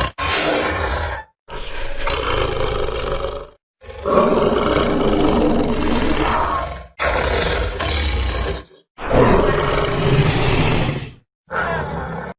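A series of about six roaring, growling creature calls used as a dragon sound effect, each one to three seconds long with a deep rumble beneath and short silent gaps between them.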